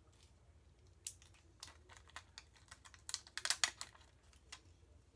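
Scattered small clicks, taps and crinkles of fingers working a stick-on gem flourish and its clear plastic carrier sheet onto a paper scrapbook page, busiest about three to four seconds in.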